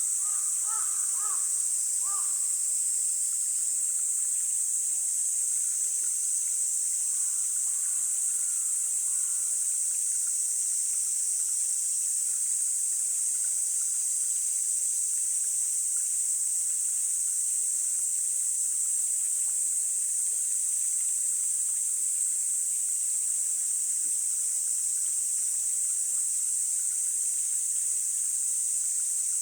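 A steady high-pitched hiss of a mountain stream and summer insects throughout. A crow caws several times in the first two seconds, and a few faint bird calls come around eight seconds in.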